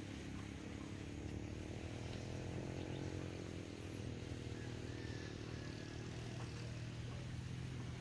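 An engine running steadily, its pitch drifting slightly up and down.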